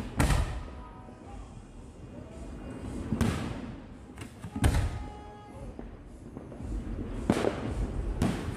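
Aerial fireworks exploding: a run of sharp booms a second or more apart, the loudest about halfway through.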